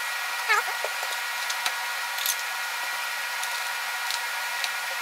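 Fast-forwarded Lego building audio: a steady high-pitched whine, brief squeaky chirps like sped-up voices, and quick light clicks of plastic Lego pieces.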